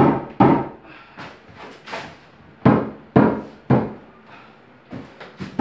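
Sharp knocks struck in quick runs of two or three, about half a second apart, each with a short ring: hard tapping on the tub and stone surround during installation.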